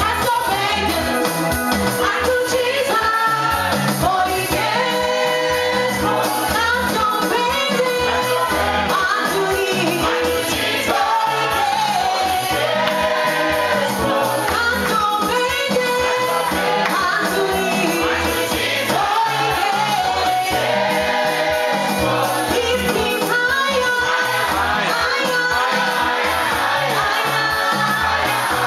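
Worship team and congregation singing a gospel song together in call and response, over a steady beat.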